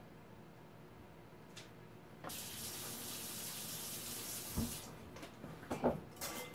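A kitchen faucet runs into the sink for about two and a half seconds, starting about two seconds in, then is shut off. A couple of knocks follow, and near the end a whisk starts clicking against a glass mixing bowl.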